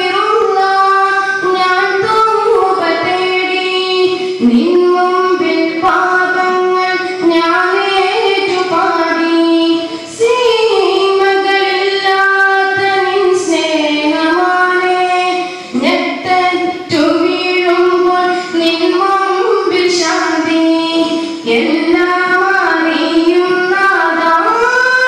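A boy singing a long, ornamented devotional melody solo through a microphone and PA, the lead song of a daff muttu performance; the notes are held long and waver in pitch, with short breaths between phrases.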